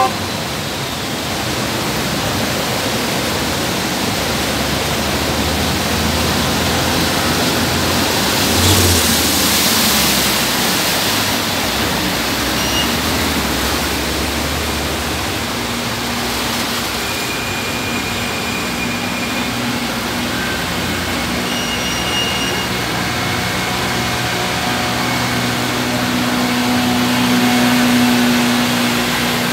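Slow traffic wading through a flooded road: car, scooter and auto-rickshaw engines running and tyres churning through the water, under a steady wash of noise. A louder surge of noise comes about nine seconds in.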